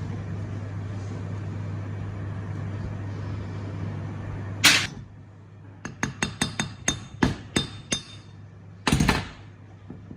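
Metal knocking and clinking: one loud knock, then a quick string of about ten sharp metallic taps that ring briefly, then another loud knock. A steady hum runs under the first half and stops with the first knock.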